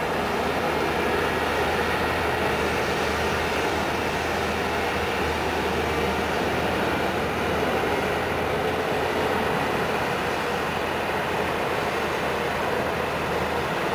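Amphibious excavator's diesel engine running with a steady, unbroken rumble and a constant low hum.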